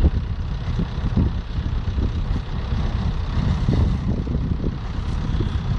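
Nuclear-powered icebreaker Taymyr pushing through sea ice: a steady low rumble with irregular cracks and crunches of ice breaking against the hull.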